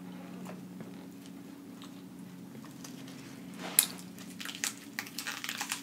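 A crisp bite into an iceberg-lettuce-wrapped burger, a sharp crunch about four seconds in, followed by a run of quick crunching chews. Before the bite there is only faint handling of the leaves over a low steady hum.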